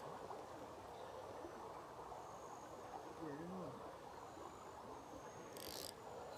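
Faint insects calling in short, high, steady trills, several times, over a low steady rush of background noise. A brief scratchy rasp comes near the end.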